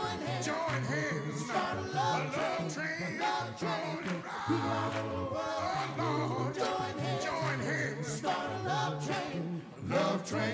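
Male a cappella group singing a soul song: a lead voice ad-libbing over close backing harmonies and a pulsing low bass voice. The singing swells to a loud final accent and stops near the end.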